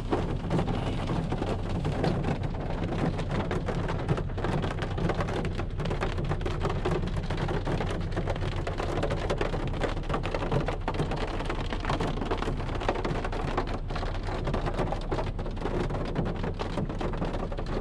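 Heavy rain drumming steadily on a car's roof and windshield, heard from inside the car, with scattered sharper drop hits.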